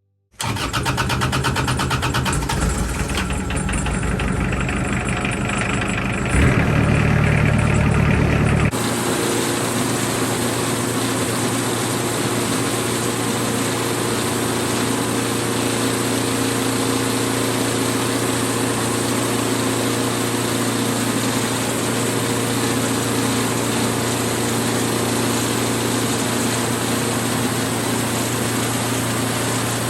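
An engine running steadily, with a fine even beat. About nine seconds in the sound changes abruptly to a smoother, steady hum with a strong low tone.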